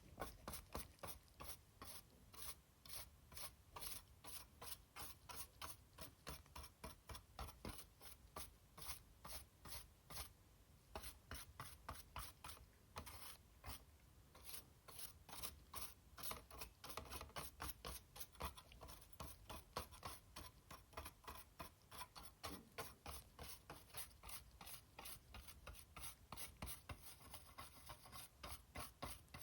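Brush scrubbing the PS4 Slim's motherboard in quick back-and-forth strokes, two or three a second, a steady run of dry rasping swishes.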